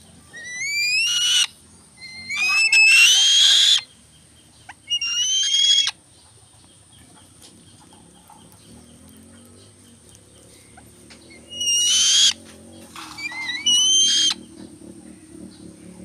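A young black-winged kite giving shrill, rising calls in five loud bouts, each a quick run of upward-sliding notes lasting about a second or so. There is a pause of several seconds between the third and fourth bouts.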